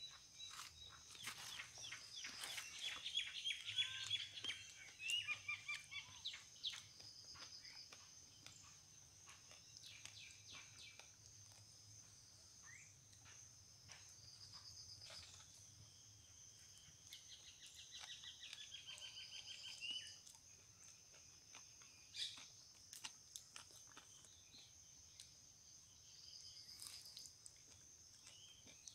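Faint outdoor ambience: small birds twittering in quick trills, over a steady high-pitched insect drone, with scattered soft clicks.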